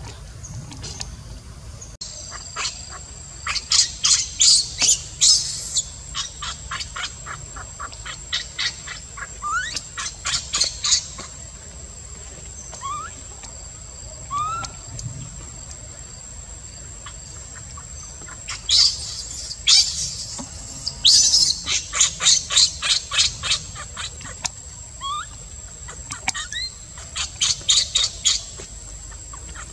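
Wild birds chirping in quick repeated trills, coming in several bursts, over a steady high thin whine that starts about two seconds in. A few short rising squeaks are heard between the bursts.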